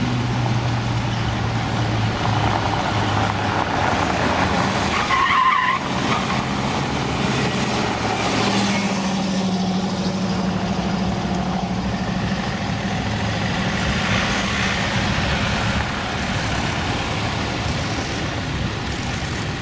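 Cars driving by one after another, their engines running at a steady note and tyres hissing on the road. A short high-pitched squeal comes about five seconds in.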